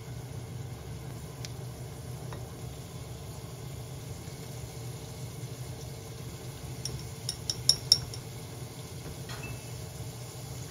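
Chopsticks clinking against a small ceramic dish as sauce is stirred: several light clinks about seven to eight seconds in, over a steady low hum.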